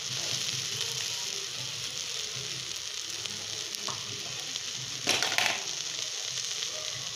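Chopped colocasia leaves and crushed coconut sizzling steadily in hot oil in an aluminium pot, with a brief louder clatter about five seconds in.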